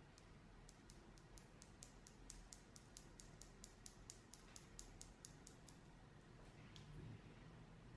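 Near silence with a run of faint, quick clicks, about four to five a second for several seconds, then a stray click or two near the end.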